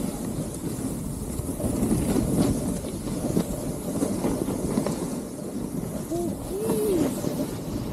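Skis running and carving over groomed snow, a steady scraping rumble that swells and eases with the turns, mixed with wind on the microphone.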